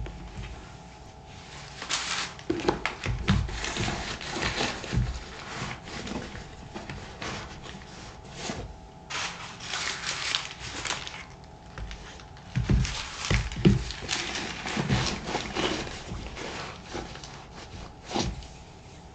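Irregular scrubbing and rubbing strokes on a leather work boot's outsole, with several soft knocks as the boot is handled.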